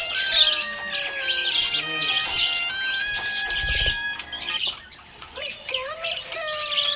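Budgerigars chirping and chattering in quick, dense bursts, over background music with long held and gliding notes.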